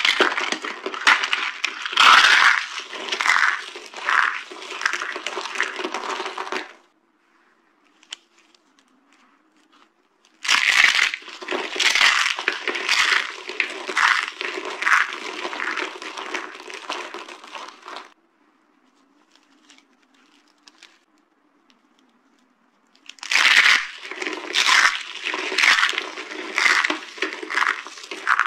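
Dry soap being crushed, crackling and crunching as it breaks, in three bouts of repeated sharp cracks. Each bout is separated from the next by a few seconds of quiet.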